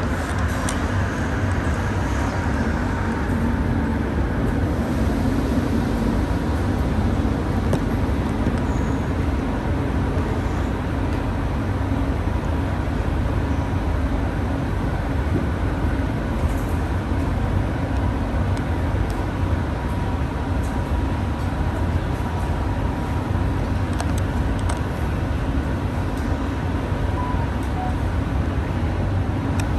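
Ride noise inside a RapidKL ART200 metro car in motion: a steady, loud rumble of steel wheels on rail with the hum of the train's linear induction motor, and a faint steady whine over it. The title calls the wheel noise loud.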